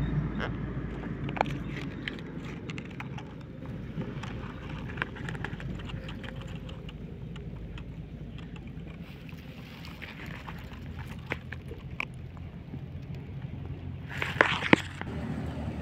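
Steady low outdoor rumble with scattered small clicks and rustles from the hand-held phone and its clip-on macro lens, with a louder burst of handling rustle and clicks near the end.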